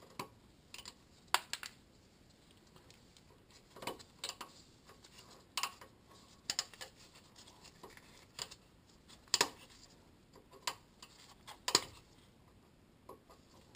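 Irregular, sharp metallic clicks and taps from hand tools working a Heli-Coil thread insert in a threaded bolt hole, about a dozen scattered strikes with quiet gaps between them.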